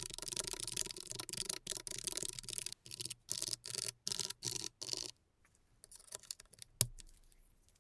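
Typing on a Logitech MX Mechanical Mini mechanical keyboard: rapid runs of clicky keystrokes with short pauses, stopping about five seconds in. A few faint taps and one sharp click follow near the end.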